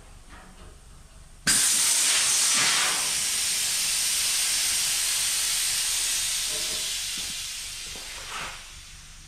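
Compressed air hissing out of the airbag suspension of a 1949 GMC pickup as the bags are let down and the truck lowers. The hiss starts suddenly and loudly about a second and a half in, holds steady, then fades away over the last few seconds.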